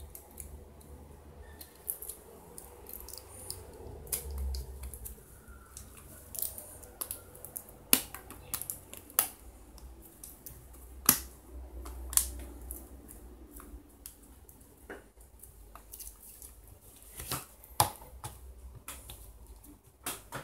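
Irregular sharp plastic clicks and taps as a replacement touchscreen glass is handled and fitted into a phone's plastic front frame. The loudest clicks come about eight, eleven and twelve seconds in, and a few seconds before the end.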